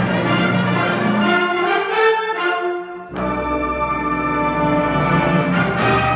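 Wind ensemble playing sustained full-band chords with brass prominent. About three seconds in the sound briefly thins and drops, then the whole band comes back in at once with strong low brass underneath.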